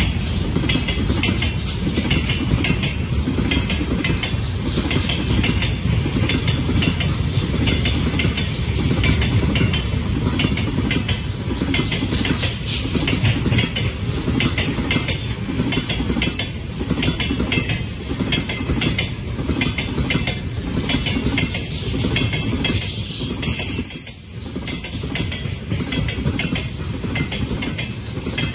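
Freight train wagons rolling past at speed: a steady heavy rumble with the rhythmic clickety-clack of wheels over rail joints.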